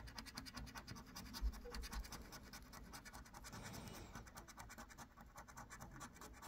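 Faint, rapid scratching of a lottery scratch card, its coating rubbed off in quick even strokes, about six a second.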